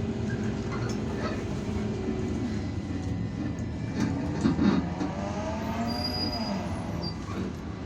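Irisbus Citelis 12M city bus on the move, heard from inside the passenger cabin: steady engine and road rumble with scattered rattles and clicks.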